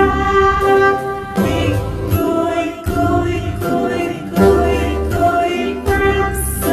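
Children's song music: voices singing a melody over a backing track with a pulsing bass.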